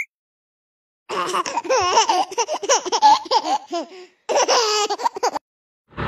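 High-pitched laughter in two bursts: a long one starting about a second in, then a shorter one after a brief break, with the pitch wavering up and down.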